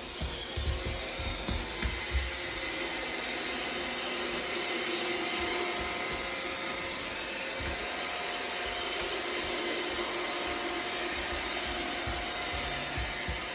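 iRobot robot vacuum running steadily, its motor and suction making a constant noise with a faint steady hum in it. A few low thumps come in the first two seconds.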